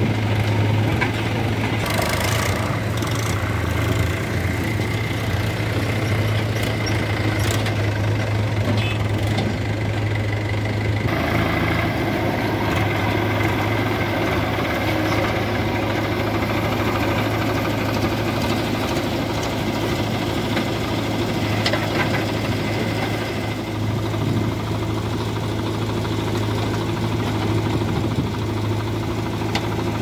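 Diesel engines of a JCB 3DX backhoe loader and farm tractors running steadily with a low, even hum, with a few faint clanks.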